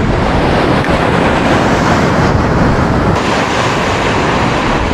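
Steady rushing noise of surf, with wind on the microphone.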